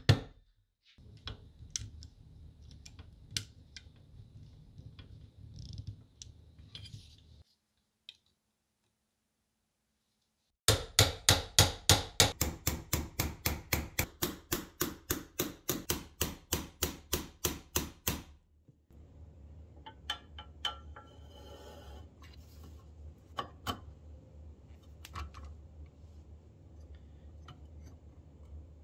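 Small ball-peen hammer tapping on the metal parts of an APSCO "Dandy" hand-crank pencil sharpener, about four even strikes a second for some seven seconds. Before and after the hammering come quieter scattered clicks of metal parts being handled.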